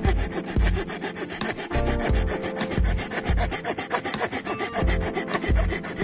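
Hand saw cutting through a dry dead branch in rapid, steady back-and-forth strokes.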